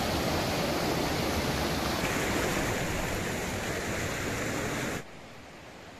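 Steady rush of flowing river water, which drops suddenly to a much quieter hiss about five seconds in.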